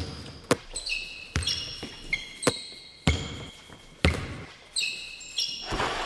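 Basketball bouncing on a hard floor, about nine echoing bounces at uneven spacing, with short high squeaks between several of them.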